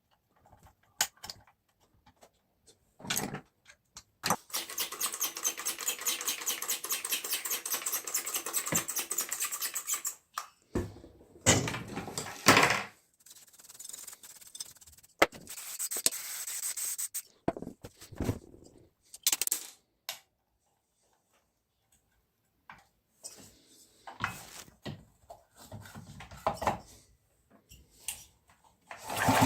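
Hand work on Husqvarna 61 chainsaw parts: a burst of rapid, even scraping strokes lasting about six seconds, then scattered clicks and knocks of metal parts and tools being handled.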